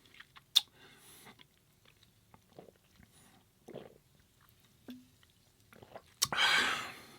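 Mouth chewing food, with soft scattered wet clicks. About six seconds in, a louder, hiss-like burst of noise lasts under a second.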